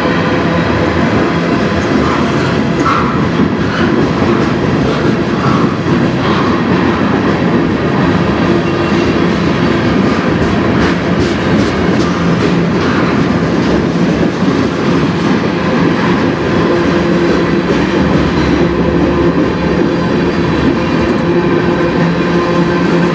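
CN freight train passing close by: railcar wheels clattering over the rail joints at a steady pace, with a steady low drone underneath.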